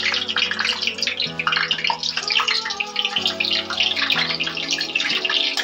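Whole green chillies frying in hot oil, a dense sizzle with constant fine crackling as they spit and burst. Background music plays under it.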